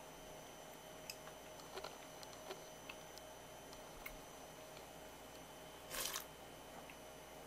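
Faint clicks and light taps from a ceramic sake cup being handled, over a steady faint background whine. About six seconds in comes one short, louder rush of noise.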